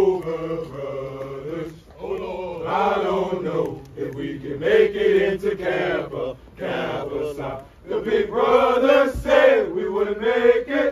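A group of men chanting together in unison as they march, in held phrases of a second or two with short breaks between.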